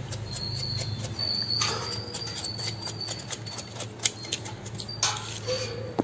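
Water sloshing in a steel bowl and a knife scraping the skin as a plucked, singed chicken carcass is washed, with two louder swishes of water, light clicking and a faint thin high tone in the first half.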